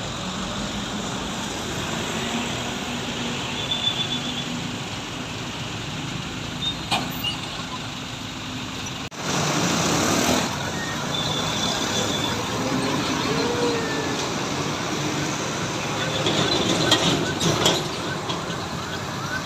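Road traffic noise with heavy trucks going by, a steady rumble of engines and tyres. The sound breaks off abruptly about nine seconds in and starts again a little louder.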